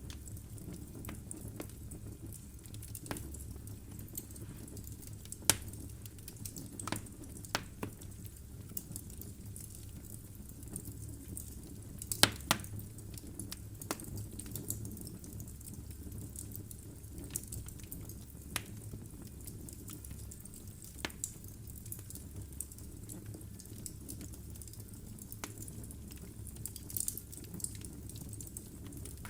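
Logs burning in a fireplace: a steady low rumble of flame with irregular sharp crackles and pops from the wood, the loudest few bunched near the middle.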